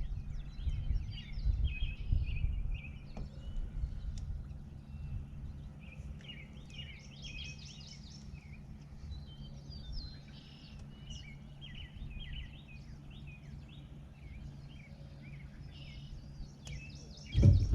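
Songbirds chirping and singing in many short phrases over the steady low hum of a boat motor while trolling, with some low rumble in the first few seconds.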